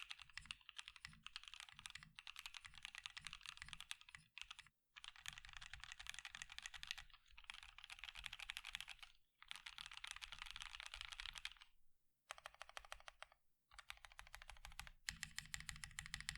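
Fast typing on a bottom-mount CannonKeys mechanical keyboard, a quick run of short, quiet key clacks in bursts of a few seconds with brief pauses between them. The sound is short and damped because there is barely any room in the case for it to resonate.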